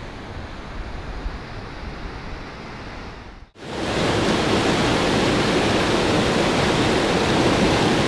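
Wind rumbling on the microphone. After a sudden cut a little over three seconds in, a fast mountain stream rushes loudly over boulders, a steady white-water roar.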